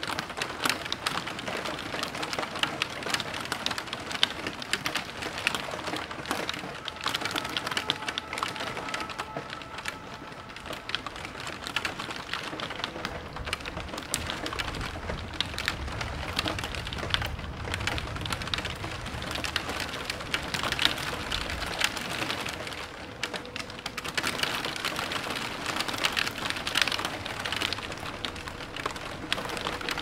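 Heavy rain, a steady hiss full of fine drop hits. A long low rumble of thunder runs through the middle.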